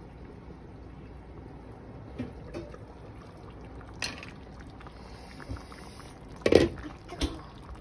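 Pot of pork-rib and potato soup bubbling at a simmer in an enamelled cast-iron Staub braiser, with a few clinks and knocks as its glass lid is lifted off; the loudest knock comes about two-thirds of the way through.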